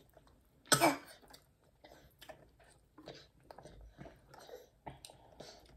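Close-up mouth sounds of sipping through a straw from a small drink carton: soft sucks, swallows and small clicks, with one short louder sound about a second in.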